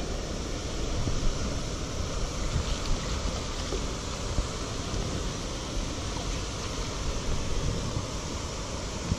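Steady rush of a mountain stream flowing over stones and spilling over a small weir, with low wind buffeting on the microphone.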